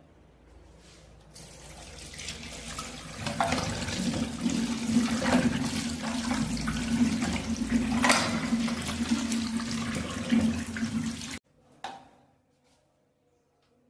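One-piece western-style toilet flushing: water rushing through the bowl, building up over the first few seconds, then cutting off suddenly near the end, followed by a single click.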